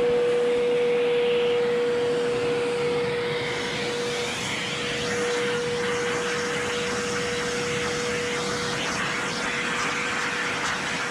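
Snap-on shop vac running as a blower: a steady motor whine over the rush of air from the hose as it blows dust, scurf and dander out of a horse's winter coat.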